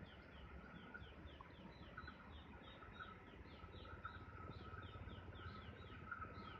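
Faint rural outdoor ambience: an even, rapid series of short high chirps, about four a second, over a low rumble that grows slightly louder near the end.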